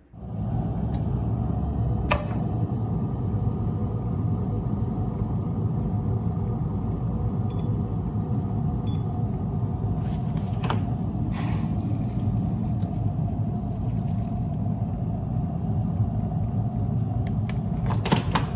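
A steady mechanical rumble that switches on abruptly, with a few sharp clicks over it.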